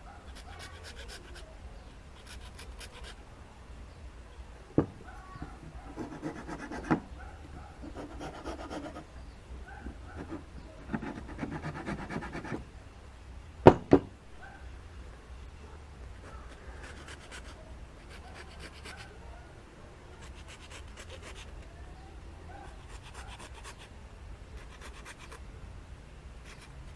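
Hacksaw blade scraped back and forth over a small piece of 4 mm plywood in short bouts of quick strokes, scoring shallow scratches so glue will grip the wood. A couple of sharp knocks about 5 and 14 seconds in.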